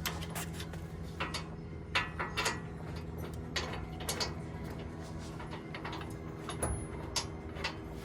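Sharp metal clicks and clinks of hand tools at work on a truck's front wheel hub, eight or so at uneven intervals, over a steady low hum.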